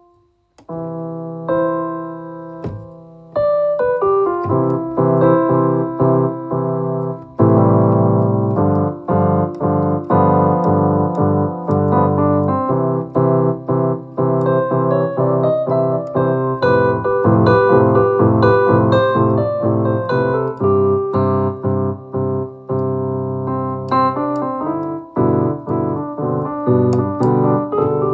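Electronic keyboard with a piano voice, played freely and improvised: sustained chords with a melody over them. It starts after a brief pause with a few sparse chords, then fills out into continuous playing from a few seconds in, with a loud full chord about seven seconds in.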